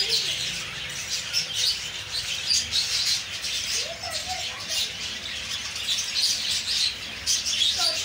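Budgerigars chattering in a cage, a steady stream of rapid short high chirps, with a few lower warbled calls about halfway through and near the end.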